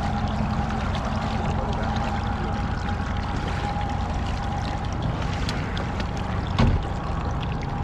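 Fishing boat's motor running steadily with a constant hum and whine over water noise. There is one sharp knock about six and a half seconds in.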